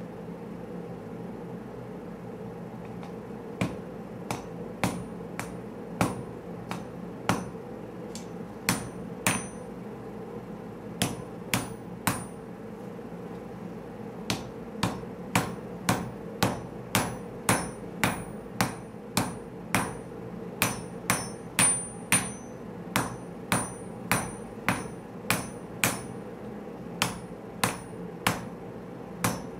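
Hand hammer striking a red-hot Damascus steel blade on the anvil, each blow with a short high ring. The blows are uneven at first, then after a short pause settle into a steady rhythm of about two a second, over the steady hiss of the gas forge.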